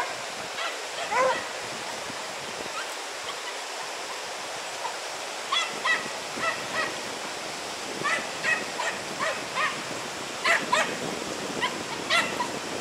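Hunting dachshunds baying: short, high yelps, a few near the start and then a run of them through the second half, over the steady rush of river water.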